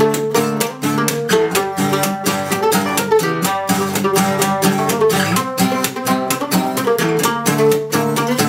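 Mandolin and acoustic guitar duo playing a fast instrumental: rapid picked mandolin notes over the guitar's driving strummed rhythm, the attacks coming in a quick, even pulse.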